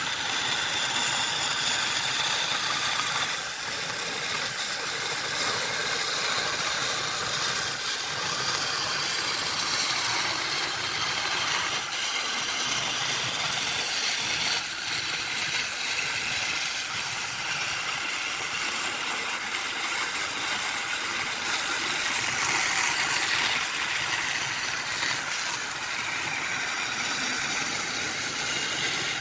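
Wood lathe running steadily, with the scraping hiss of a turning tool cutting the spinning blank.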